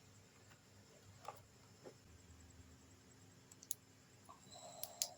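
A few faint, scattered plastic clicks and taps from handling a ring light and tripod set, with the last two, near the end, the loudest.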